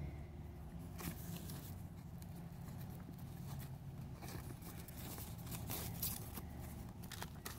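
Clear plastic sleeve rustling and crinkling as an acrylic figure magnet is handled and slid into it, with scattered small clicks and taps, over a steady low background hum.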